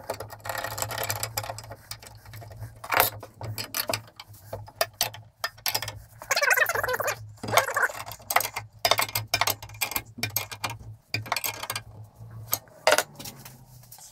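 Hand tools working a nut and bolt on a steel lawn mower jack frame: irregular metallic clicks, clinks and scrapes as an open-end wrench turns the nut and steel parts are handled. A steady low hum runs underneath and stops near the end.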